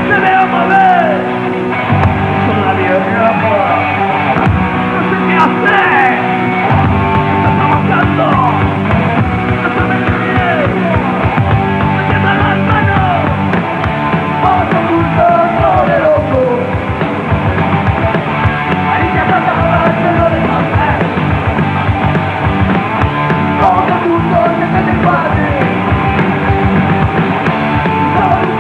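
Punk rock band playing live at full volume, with distorted electric guitar, bass guitar and drums, and gliding guitar or vocal lines over a steady beat.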